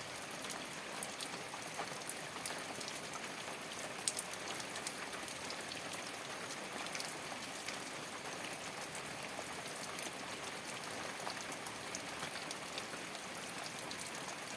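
Rain falling on a thatched straw roof: a steady patter of many individual drops, with one sharper drop about four seconds in.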